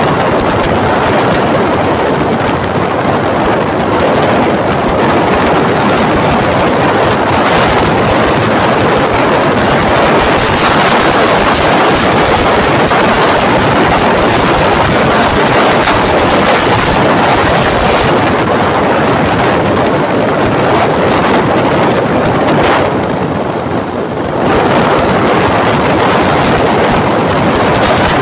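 Loud, steady wind rush buffeting a phone microphone on a moving motorcycle, blended with engine and road noise. It eases briefly about three-quarters of the way through.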